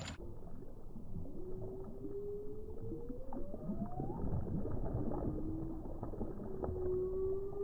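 Slowed-down, muffled audio of a bass thrashing and splashing at the water's surface. It comes through as a deep, uneven rumble with knocks, plus two long, slowly rising whines.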